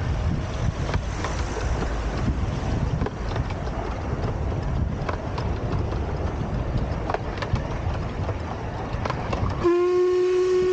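12¼-inch gauge miniature steam train running, a low rumble with scattered clicks from the wheels on the track. Near the end a steam locomotive's whistle sounds one loud, steady note.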